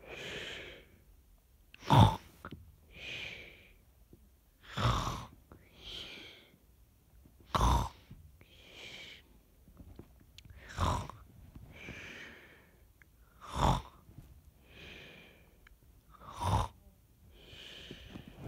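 A person snoring: a loud snore about every three seconds, six in all, each followed about a second later by a softer, hissing out-breath.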